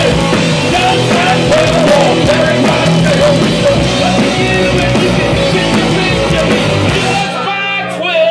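Live rock band with two electric guitars and a drum kit playing loud. The drums and cymbals stop about seven seconds in.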